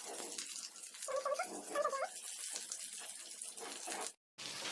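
Oil sizzling in a frying pan, with two short high-pitched squeaks about a second and two seconds in. The sound cuts out briefly near the end.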